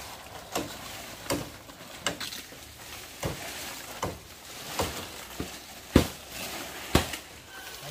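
A steady series of sharp knocks, roughly one every three-quarters of a second, with the two loudest near the end, over a faint hiss.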